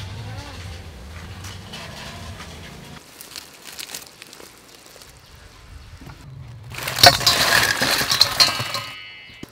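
Sauce poured from an aluminium pot onto fried chicken drumsticks in a stainless steel bowl: a loud splashing, crackling rush of about two seconds, ending with a short metallic ring.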